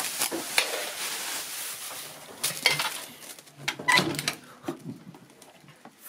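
Plastic wrapping and packing rustling, with knocks and light clatter, as a new microwave oven and its parts are handled out of the box.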